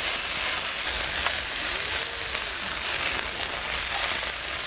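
Sliced pork belly and beef sizzling steadily in oil on a hot griddle plate.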